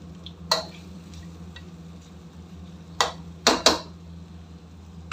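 Flat metal spatula knocking and scraping against a metal karahi while stirring chicken pieces: four sharp clinks, one about half a second in and three close together around three seconds in.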